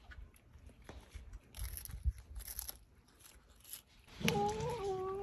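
Stray cat crunching and chewing dried capelin, then, about four seconds in, letting out a drawn-out, steady-pitched murmuring call as it eats.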